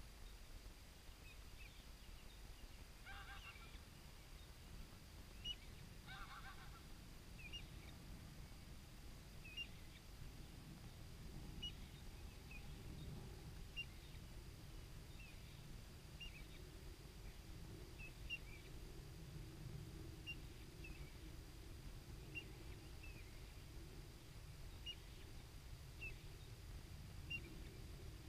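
Faint pond-side birdsong: a waterfowl gives two short calls in the first few seconds. After that a small bird repeats a short high chirp about every second and a half, over a steady low rumble.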